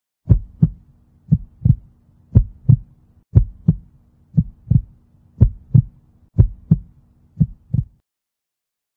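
Heartbeat sound effect: eight double thumps, each a lub-dub pair, about one a second, stopping about eight seconds in.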